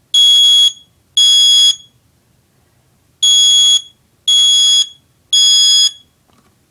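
First Alert SA304 smoke alarm sounding under its test button: loud, high-pitched half-second beeps in the three-beep temporal pattern. Two beeps end one group, then after a pause of about a second and a half come three more beeps.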